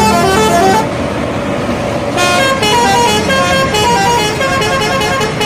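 Bus telolet horn: a multi-tone air horn playing a quick melody of short notes. It breaks off after about a second and starts again about two seconds in, over a steady low engine hum.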